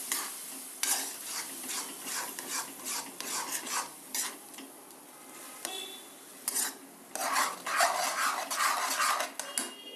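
Metal spatula stirring and scraping tomato purée around a metal kadai, in many irregular strokes with a quicker run of them near the end. The hot oil sizzles under the purée at first, fading after the first second or two.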